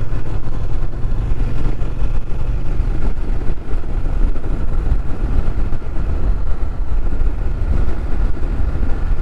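Honda NC750X's parallel-twin engine droning steadily at cruising speed, under a low, even rush of wind on the microphone.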